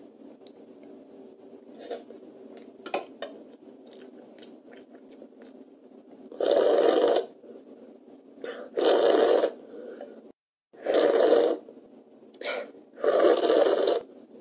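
A child slurping soup off a spoon: four loud wet slurps, each about a second long and about two seconds apart, in the second half. A few light clicks of the spoon come before them.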